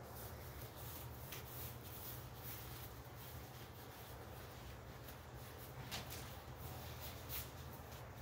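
Faint rustling and rubbing of thin disposable gloves being peeled off the hands, with a few soft clicks near the end, over a low steady hum.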